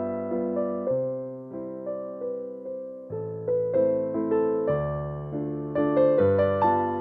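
Background music: a gentle piano tune, with notes and chords struck and left to ring.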